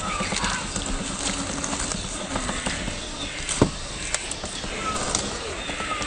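1:10 scale RC rock crawler on a Traxxas TRX-4 chassis driving up a forest slope, its tyres crunching and crackling over dry leaf litter and sticks. There is one sharp crack a little past the halfway point.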